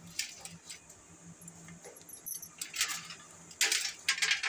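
Steel slotted spoon scraping and clinking against a kadhai while stirring coconut pieces in hot sugar syrup. There are a few short scrapes, the loudest near the end, over a faint low hum.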